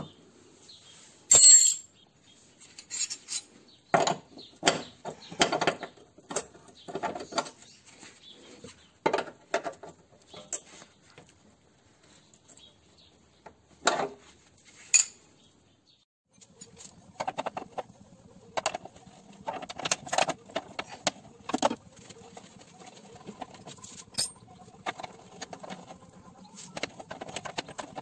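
Metal hand tools and parts clinking and knocking in irregular taps, with a louder sharp clatter about a second and a half in, as work goes on at a car's front brake.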